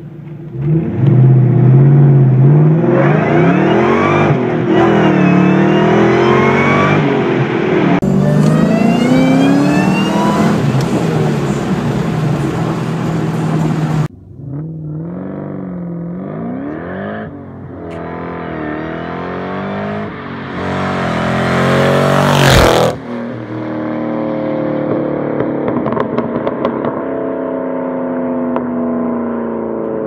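Supercharged SVT Cobra 4.6-litre V8s accelerating hard in a string of short clips, the supercharger whine climbing with the revs and dropping back again and again; the later clips are a Whipple twin-screw supercharger. A little past two-thirds of the way through, a car passes close by, the loudest moment.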